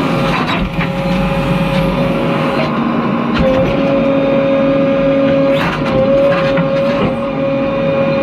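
JCB 3DX backhoe loader's diesel engine running steadily under working load, with a steady high whine that dips briefly in pitch now and then. Several short knocks sound over the engine.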